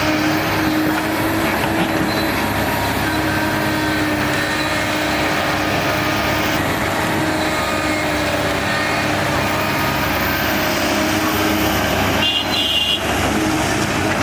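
Diesel engine of heavy earthmoving machinery running steadily, with a constant drone.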